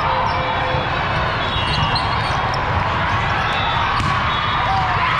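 Busy volleyball hall during play: scattered smacks and bounces of volleyballs, from this court and the many around it, over a steady echoing murmur of players and spectators.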